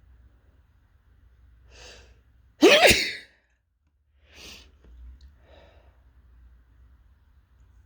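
A person's single strong sneeze about two and a half seconds in, after a short inhale, its voiced part rising in pitch, followed by two quieter breaths.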